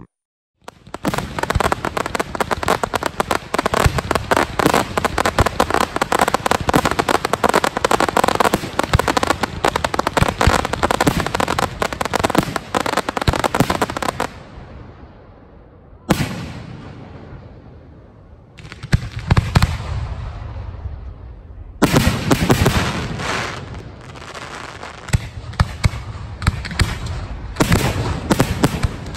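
Aerial fireworks display: a dense, continuous run of bangs and crackling for about the first fourteen seconds, then a brief lull, then further shell bursts in separate groups with crackle.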